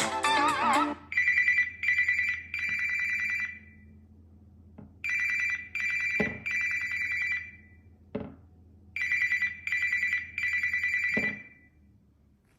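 A Samsung Galaxy S24 Ultra ringtone that imitates an old telephone bell. It plays three bursts of three short, bright rings, each burst about four seconds apart. The last notes of the previous musical ringtone end about a second in, and a few brief low knocks fall between the rings.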